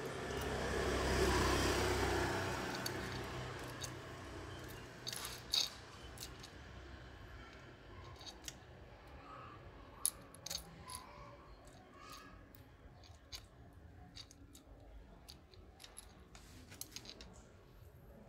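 Light metallic clicking and rattling of a new 88-link cam chain for a Honda Wave S100 as its links are handled and drawn through the engine, in scattered sharp ticks. A low rumble swells and fades over the first three seconds.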